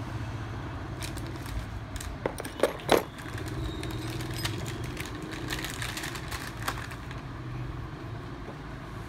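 A few sharp clicks and knocks of metal spray gun parts being handled and set down, the loudest about three seconds in, over a steady low hum.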